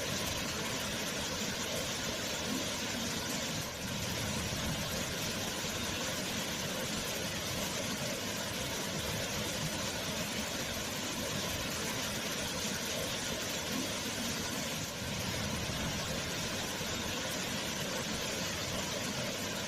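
Waterfall: a steady, even rush of falling water, dipping briefly in loudness about four seconds in and again near fifteen seconds.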